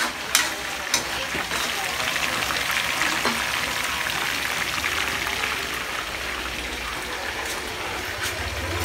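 Chicken pieces frying in bubbling hot oil in a pan, a steady sizzle, with a few sharp metal clinks of a ladle against the wok near the start.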